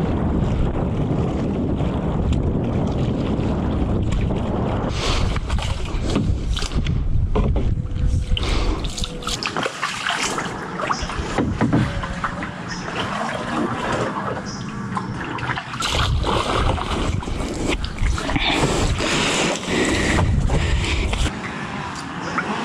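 Canoe paddle strokes splashing in the water, with wind buffeting the microphone.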